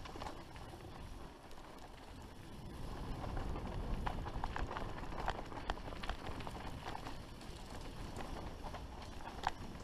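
Mountain bike riding fast down a dirt forest trail: tyres crunching and rumbling over loose soil, roots and stones, with frequent sharp knocks and rattles from the bike over the bumps. The low rumble grows louder about three seconds in.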